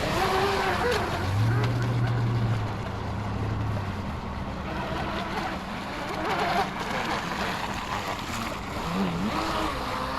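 Small electric RC boat motor whining, its pitch rising and falling as the throttle is worked, over a steady wash of noise. A low steady hum runs for a few seconds early on.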